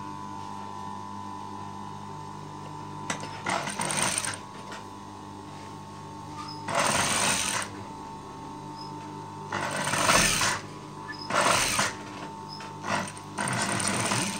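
Sewing machine stitching through thick furry fabric in five short runs of about a second each, the last one longer, with a steady motor hum between runs.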